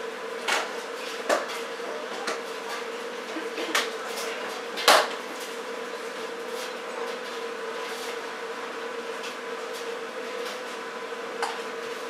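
Indoor room tone with a steady hum and a handful of sharp household clicks and knocks, the loudest about five seconds in.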